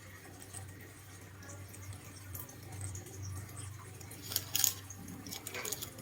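Light clicking and clinking of small hard objects, with a few sharper taps about four and a half seconds in and again near the end, over a steady low hum.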